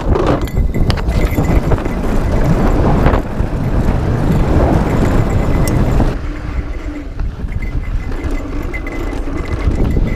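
Mountain bike descending a dirt downhill trail: wind rushing over the microphone mixed with tyres on dirt and the bike rattling over bumps. In the first second a quick run of knocks as the wheels cross a wooden slat bridge; after about six seconds the noise drops a little.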